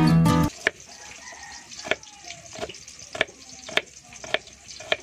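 Kitchen knife slicing a red onion on a wooden cutting board. The blade knocks against the board about seven times in a steady rhythm, a little under two strokes a second.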